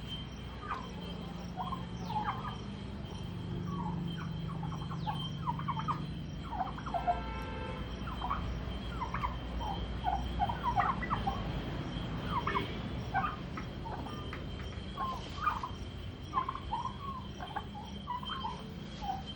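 Domestic turkeys calling: a flock giving many short, overlapping calls throughout, with one longer pitched call about seven seconds in.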